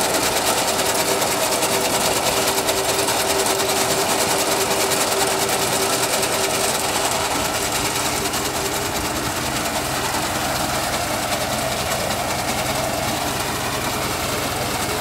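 Tractor engine running with a tractor-mounted reaper's reciprocating cutter bar working, a fast, even clatter over a steady engine hum.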